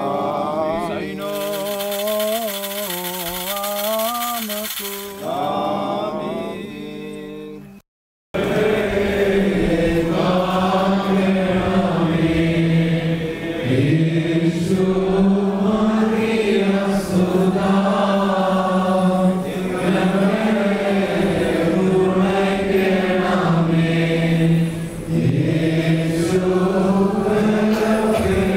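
Church liturgical chanting: one voice chants a melodic line, then after a brief break about eight seconds in, a group of male voices chants together in unison.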